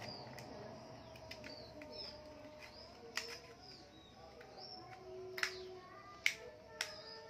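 A few sharp plastic clicks as a Kingston DDR4 laptop RAM module is taken out of its packaging. Small birds chirp repeatedly in the background.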